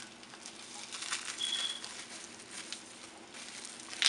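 Paper or plastic wrapping rustling and crinkling as a hand unwraps a small package, with scattered light clicks and one sharp click near the end.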